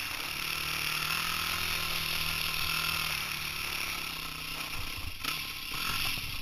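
Dirt bike engine running steadily while riding a forest trail, its pitch shifting about five seconds in as the throttle changes.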